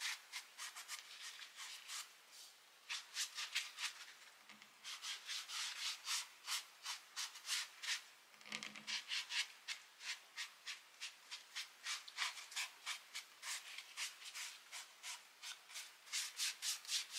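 Foam sponge brush scrubbing a coffee stain mixture into stuffed fabric candy corn, the grunge-staining stage: quick scratchy rubbing strokes, a few a second, with short pauses about two seconds in and again about eight seconds in, and a soft thud or two as the piece is handled.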